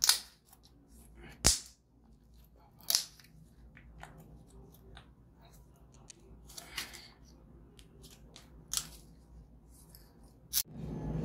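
Packaged biscuits and their plastic wrappers being handled and opened: about six sharp snaps or cracks, a second or two apart, with light rustling between them. A continuous crushing, crinkling noise starts just before the end.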